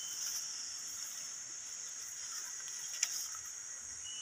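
Insects in the surrounding forest keep up a steady, high-pitched chorus. A single sharp click comes about three seconds in.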